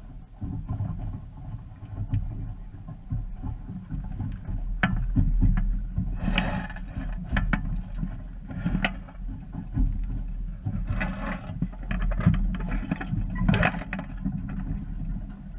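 Small sailing dinghy under way: wind buffets the camera microphone with a constant uneven rumble, while water slaps and splashes against the hull in hissing bursts, with a few sharp knocks.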